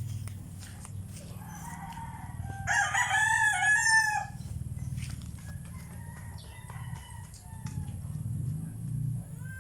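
A rooster crowing once, loudest about three to four seconds in, followed by fainter chicken calls.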